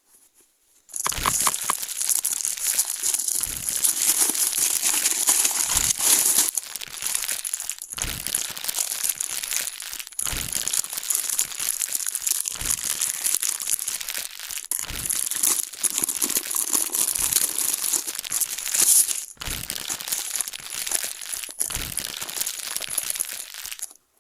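Plastic parcel packaging crinkling and rustling continuously as it is handled and unwrapped, starting about a second in. Soft low thumps come every two seconds or so.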